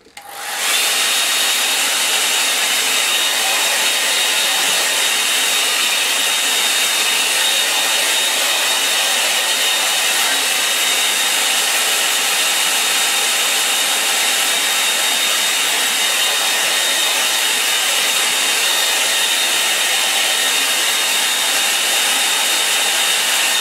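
Handheld hair dryer switched on about half a second in and running steadily, blowing air over wet watercolour paper to dry the paint. A steady rush of air with a thin, high whine held on one pitch.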